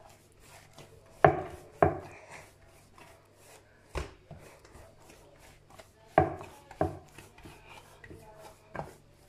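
Pizza dough being kneaded by hand in an earthenware bowl: six dull thumps at uneven intervals as the dough is pressed and folded against the bowl, with soft rubbing and lighter knocks between them.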